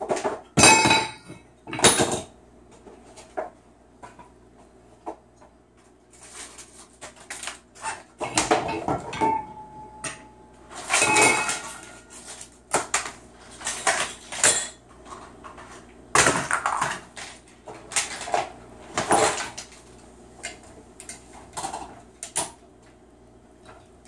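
Cockatoo knocking and flinging toys and objects about on a tile floor: an irregular run of clatters, knocks and scrapes, some with a short metallic ring.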